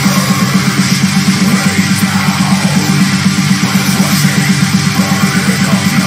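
Heavy metal song playing, with distorted electric guitars and a fast, driving low pulse from the drums.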